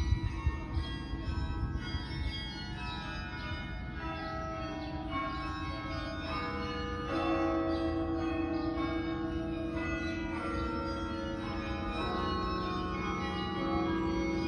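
Carillon bells of Yale's Harkness Tower playing a slow tune: single notes struck about once a second, each ringing on under the next. A low rumble lies underneath, with a few bumps at the start.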